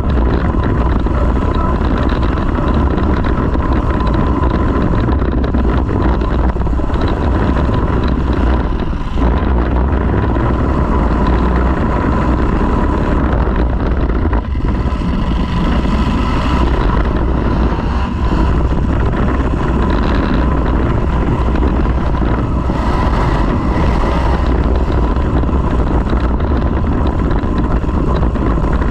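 Demolition derby muscle car's engine running loudly at close range, a steady, rough rumble that barely changes.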